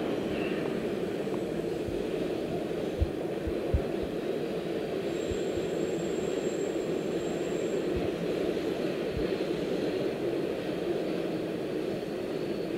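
MBTA Orange Line subway train running with a steady rumble. A few short low thumps come about three to four seconds in and again later, and a thin high-pitched whine rises above the rumble for a couple of seconds in the middle.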